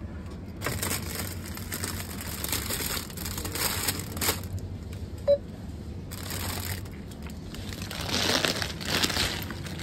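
Plastic bags of salad crinkling and rustling as they are handled and lifted from a produce crate, in several spells, over a steady low hum. A brief beep about five seconds in.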